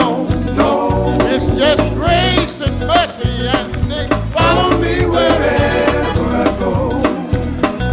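Gospel band performing live: a singer's wavering voice over electric guitars, bass and a steady drum beat.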